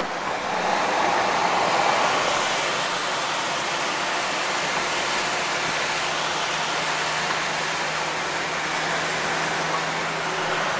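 Steady rush of road and wind noise from a car driving across a highway bridge, heard from inside the car. It is a little louder for the first couple of seconds.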